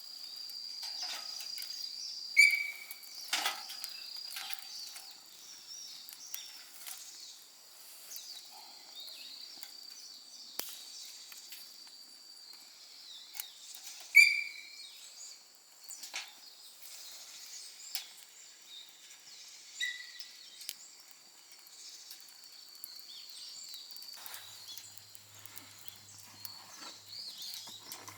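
Sika deer calling from the forest: two sharp, short, high-pitched calls about twelve seconds apart and a fainter third, over the scattered crackle of a small campfire.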